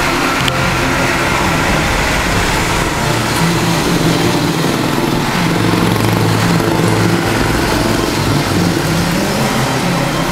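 Street traffic: small motorcycle engines running over a steady hiss of traffic on a wet road.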